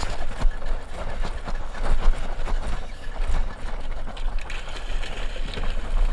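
Yamaha outboard motor running, mixed with irregular knocks and water splashing at the side of a small boat, over a low wind rumble on the microphone.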